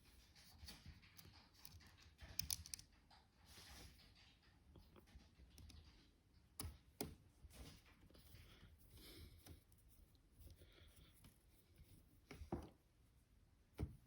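Faint, scattered clicks and taps of a small screwdriver and laptop parts being handled while the hinge screws are driven back in, with a few sharper clicks among them.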